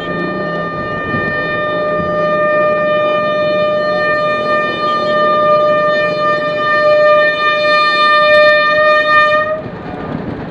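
Horn of an HBU-20 diesel-electric locomotive sounding one long single-note blast as the train approaches, growing louder before it cuts off sharply about a second before the end. After that comes the steady running noise of the oncoming train.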